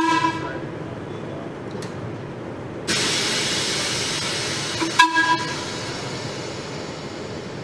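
Horn of the electric snow-sweeper streetcar C-145 giving a short toot at the start and another toot in two or three quick pulses about five seconds in. Between the toots a loud steady hiss starts about three seconds in and fades after the second toot.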